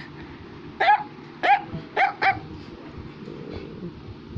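Four short, high-pitched yaps like a small dog barking, the last two close together.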